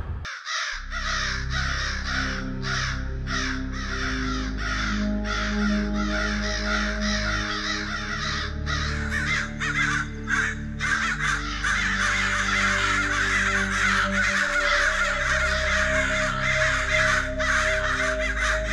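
A large flock of crows cawing together, many calls overlapping without pause, over a low held music drone.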